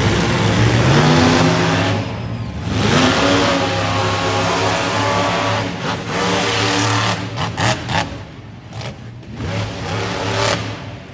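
Monster truck engines running and revving, pitch rising and falling, loudest in the first half and dropping off after about eight seconds.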